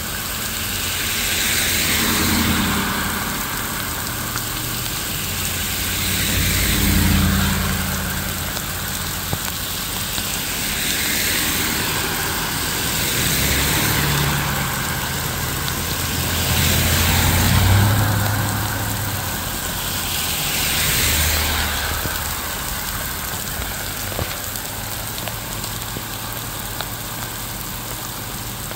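Steady rain with a string of about six vehicles passing one after another on a wet road. Each brings a swell of tyre hiss and engine that rises and fades over a few seconds. After the last one, a little past twenty seconds in, only the rain remains.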